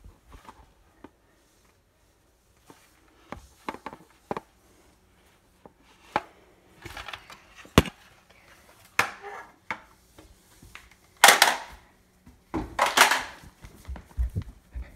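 Scattered knocks, clicks and rustles of a phone and props being handled while the holder moves, with two louder rustling bursts near the end.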